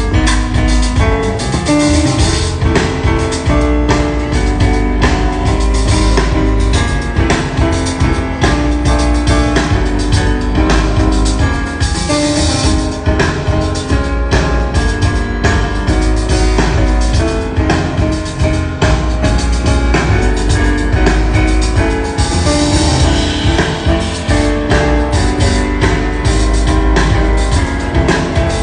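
Live jazz piano trio playing: piano over drum kit and double bass, with the cymbals swelling twice.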